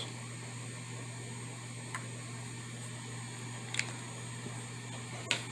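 Steady low background hum, with three faint small clicks: about two seconds in, near four seconds, and near the end.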